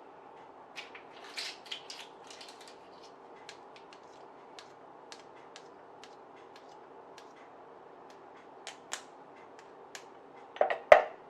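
Scattered light clicks and taps over a faint steady hum, with a few louder clacks near the end: a garlic chopper and its plastic bowl and lid being handled.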